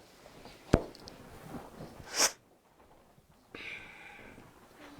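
Microphone handling and sound-system noise: a sharp knock, then a short hissing burst. After that the sound drops out suddenly and comes back as a steady hum.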